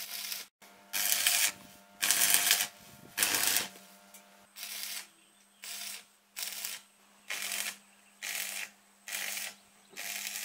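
Stick (arc) welder crackling through a run of short tack welds on a steel frame: about ten bursts, each under a second, the first few loudest. A faint low hum runs underneath.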